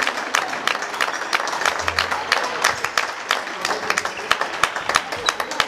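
Spectators applauding the players, a dense stream of separate hand claps.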